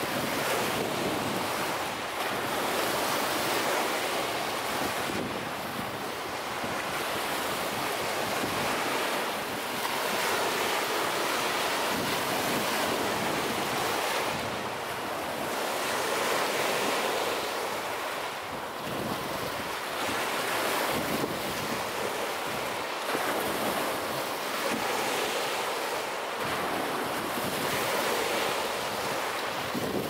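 Small Lake Michigan waves breaking and washing up a sandy beach: a steady wash of surf that swells and eases every few seconds.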